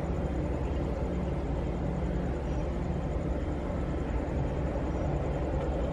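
A steady low mechanical drone over a general background noise, with no distinct events.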